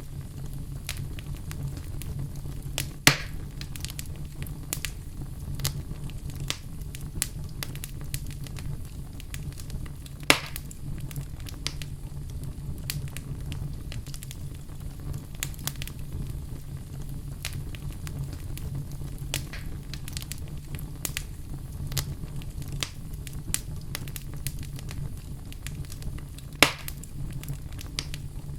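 Wood fire crackling in a fireplace: constant small crackles over a steady low rumble, with three louder pops, about three seconds in, about ten seconds in and near the end.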